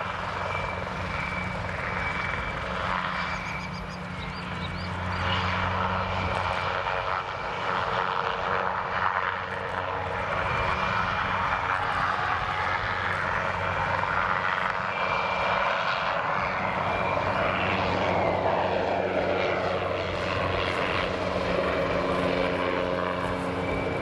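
PZL SW-4 light helicopter in low flight: its single turboshaft engine's whine, with a thin high steady tone, over the steady low thrum of the main and tail rotors. About three quarters of the way through, the rushing part of the noise sinks in pitch.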